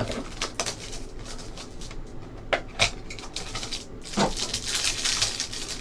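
Trading cards and their packaging being handled: a few short clicks and taps, then from about four seconds in a stretch of crinkling, rustling plastic wrapper.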